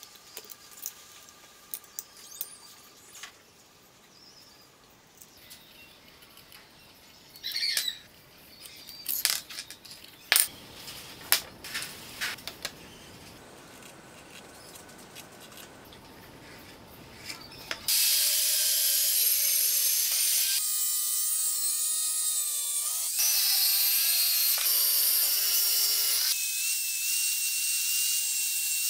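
Scattered light metallic clicks and taps of hand tools on metal, then, about two-thirds in, an angle grinder with a thin abrasive cut-off disc starts cutting into a steel hand-saw blade. It gives a loud high hiss and whine whose pitch shifts, broken by short pauses between cuts.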